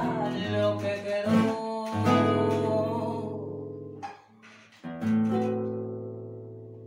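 Closing bars of a tango for voice and acoustic guitar: a woman sings the last phrase over the guitar for about three seconds, and it fades out. Just before five seconds in, the guitar strikes a final chord that rings and slowly dies away.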